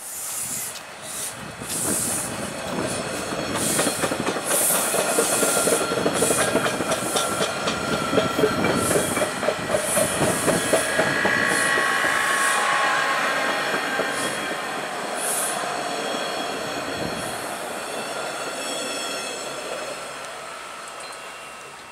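TTC T-1 subway train passing on surface track, its wheels clacking in quick rhythm over the rail joints. It grows loudest about halfway through, with a brief high-pitched squeal, then fades as the train moves away.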